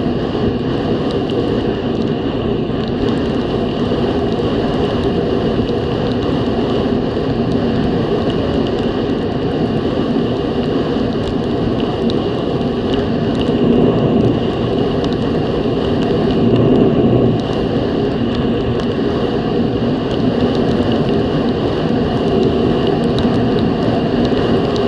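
Snowmobile running at steady speed along a trail: a continuous engine and track drone mixed with wind noise, swelling briefly twice around the middle.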